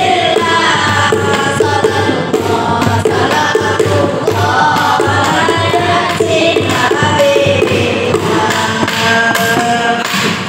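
Boys' nasyid group singing together in Indonesian/Arabic devotional style into microphones, over a steady low beat.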